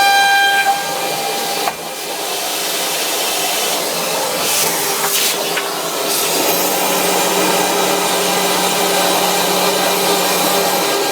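CNC router spindle at 24,000 rpm milling 19 mm MDF with a 6 mm end mill. A high whine with overtones drops out within the first two seconds, leaving a steady rushing cutting noise. A low hum joins about halfway through.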